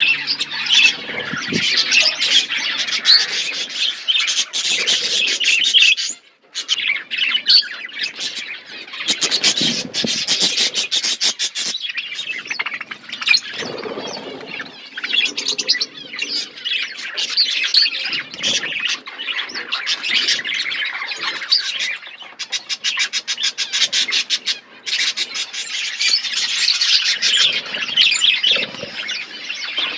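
A flock of budgerigars chattering and chirping in an aviary: a dense, continuous mix of high, rapid warbling calls, with a brief lull about six seconds in.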